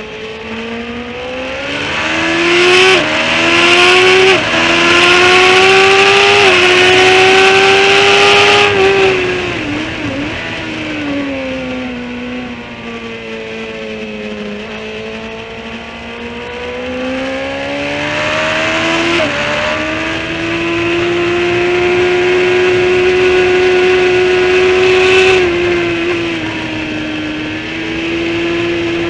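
Onboard sound of a sport motorcycle's engine being ridden hard on a race circuit, with wind rushing over the bike. The revs climb with sudden steps to about nine seconds in, then fall away under braking for a corner. They climb again from about sixteen seconds and hold high before dropping back near the end.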